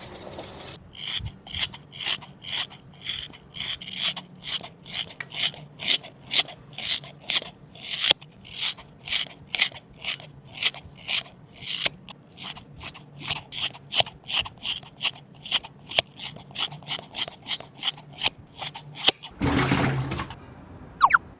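Rhythmic rasping strokes, about three a second, each a short scratchy hiss, like something being filed or grated back and forth. A louder, steadier rush of noise lasts about two seconds near the end.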